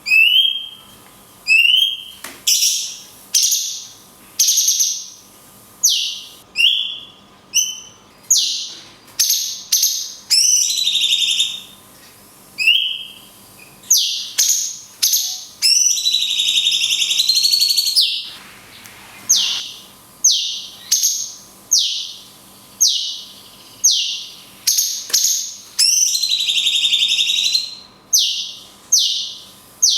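Cucak cungkok (blue-winged leafbird) singing a fast series of loud, sharp whistled notes, about one a second. Twice, once midway and once near the end, it draws a note out into a longer wavering phrase. These are the long 'kunti' shots prized in birdkeepers' training recordings.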